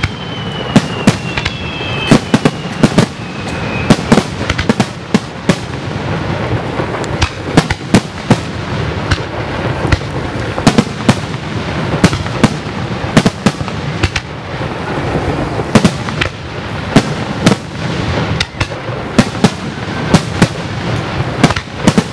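Fireworks show with shells bursting in quick succession: many sharp bangs, often several a second, over a continuous din. Thin high whistles glide slightly downward in the first three seconds.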